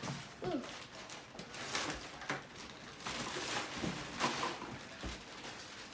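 Plastic shopping bag rustling and crinkling in uneven bursts as toy groceries are put into it and it is handled.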